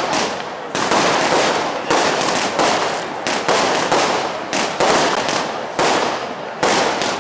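Fireworks display going off in rapid succession: a sudden bang about once a second, each trailing off in crackling before the next.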